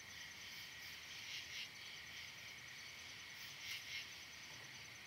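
Faint, steady chorus of crickets and other insects, a thin high buzz with slight flickering.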